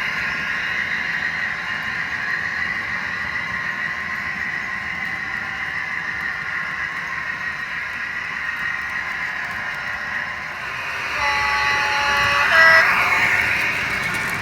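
A Hornby Class 56 model locomotive's DCC sound decoder plays a steady diesel engine sound through its small onboard speaker as it runs. About eleven seconds in, its two-tone horn sounds: a longer low note, then a brief higher one.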